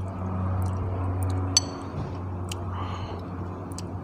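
Steady low hum with a few scattered small clicks, and one sharp bright clink about one and a half seconds in.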